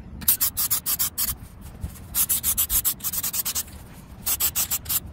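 Aerosol can of acrylic spray paint hissing in rapid short spurts, in three runs with brief pauses between, as a second coat goes on.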